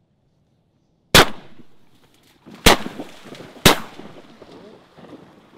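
Three shotgun shots, the first about a second in, then two more roughly a second and a half and a second apart, each trailing off in a short echo. The shots bring down ducks.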